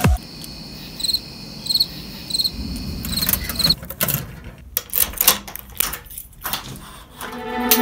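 Keys and locks clicking and rattling: a key ring jangles, and keys turn in a metal cam lock, a mailbox lock and a screen-door lock, with a run of sharp clicks in the second half. Under the first half runs a faint steady high-pitched chirping, with three short chirps about two-thirds of a second apart.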